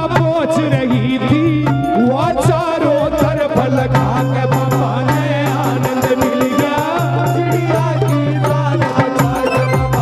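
Instrumental interlude of a Haryanvi bhajan band: an ornamented melody line with many pitch glides, played over a running hand-drum rhythm and a steady low hum.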